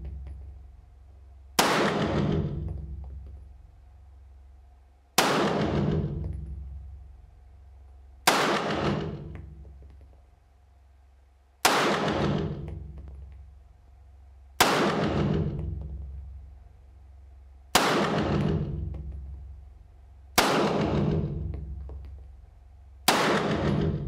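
Eight 9mm pistol shots from an HPS Fivetac 2011-style pistol firing Winchester White Box 9mm Luger 115-grain round-nose ammunition. This is slow, aimed fire from a rest, about one shot every three seconds. Each shot is sharp and rings out with a long echo that fades over two to three seconds in the indoor range.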